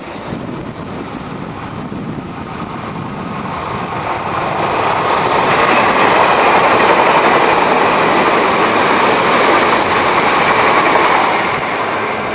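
Odakyu electric passenger train passing close by on the rails. Its running noise grows louder from about four seconds in, stays loud for several seconds as the cars go past, and eases off near the end.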